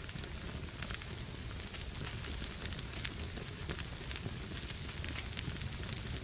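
Fire burning in a fireplace: a steady low rumble with frequent small crackles and pops.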